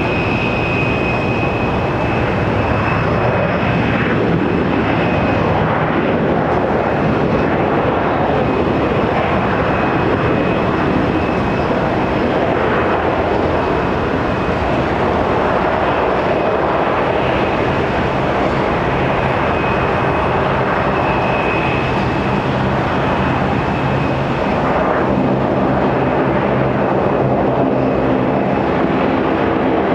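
De Havilland Canada Dash 8-400 turboprop's two Pratt & Whitney PW150A engines and propellers running as the airliner slows on the runway after landing and taxis off: a loud, steady drone with a thin high whine over it. In the last few seconds a low propeller hum becomes plainer.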